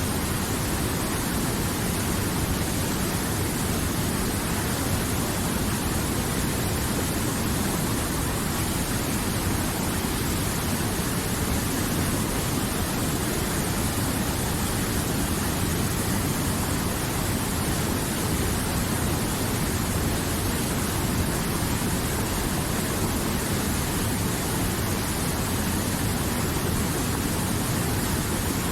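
River water flowing, a steady, even rushing with no change in level.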